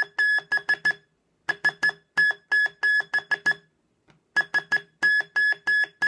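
Homemade battery-powered Morse code speaker built in a 1950s Band-Aid can, keyed by a J-38 telegraph key, beeping one steady tone. It sends SOS (three short, three long, three short beeps) twice in full, after the tail end of a previous SOS, with a short pause between groups.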